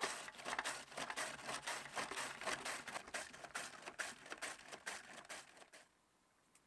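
Head of cabbage being shredded on a plastic mandoline slicer: a rapid run of short slicing strokes, about two a second, that stops near the end.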